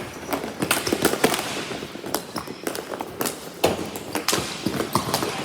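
Ball hockey play: irregular sharp clacks and knocks of sticks striking the ball and each other, several a second, with a few louder cracks.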